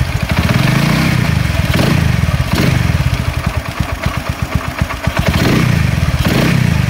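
Small motorcycle engine running at idle, a fast, even putter. Its manifold vacuum is holding the vacuum fuel cut-off valve open, so fuel flows to the carburetor.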